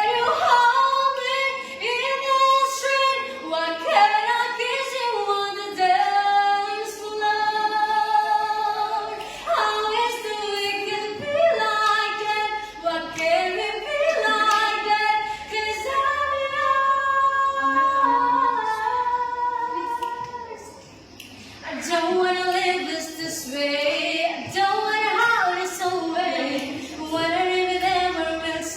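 Unaccompanied female voice singing a solo melody a cappella, in sung phrases with held notes and a short pause about two-thirds of the way through.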